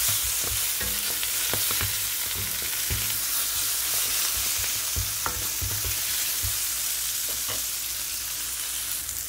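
Chopped onion and spinach sizzling in butter in a non-stick frying pan, with a wooden spatula stirring and scraping, knocking on the pan every second or so. The stirring stops near the end while the frying hiss goes on.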